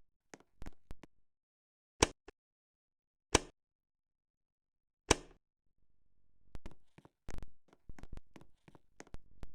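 Sharp knocks and clicks from a wobbling ceiling fan. Three loud, separate knocks come well apart, then a quicker cluster of clicks and knocks follows near the end.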